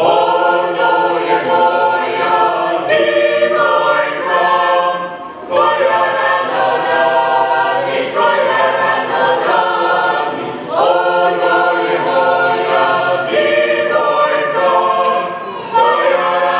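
A mixed Dalmatian klapa of women's and men's voices singing a cappella in close harmony, in held phrases of about five seconds with short breaths between them.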